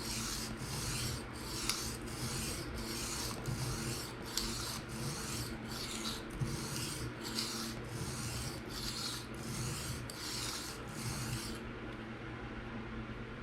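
PM60 steel knife blade scraped in rhythmic freehand strokes across a diamond sharpening stone, about two gritty strokes a second, stopping shortly before the end. This is steady sharpening to raise and even out the burr on the edge.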